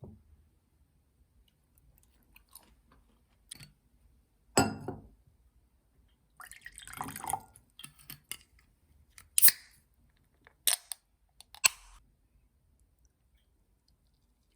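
Kitchenware being handled: a few sharp knocks and clinks, spaced a second or more apart, with a longer scraping rustle a little past the middle.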